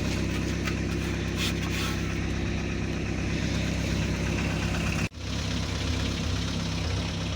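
Motorhome engine idling steadily through its old, leaking exhaust, which is blowing somewhere along the rusted system. The sound drops out for an instant about five seconds in, then carries on.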